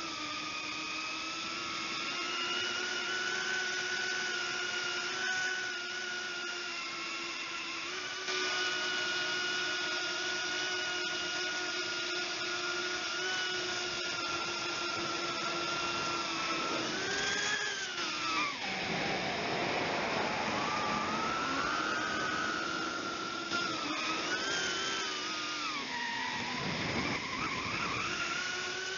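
Brushless motors and propellers of a 135 mm FPV quadcopter whining, heard through its onboard camera. The pitch holds steady for about the first half, then falls and climbs back sharply twice.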